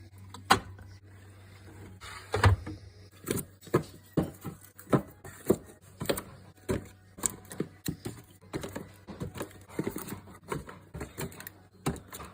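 Irregular knocks and clacks, roughly two a second, of containers and items being set down on fridge shelves, over a faint steady low hum.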